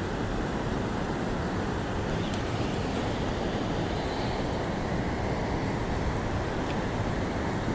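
Steady rushing of fast river current, mixed with wind buffeting the microphone.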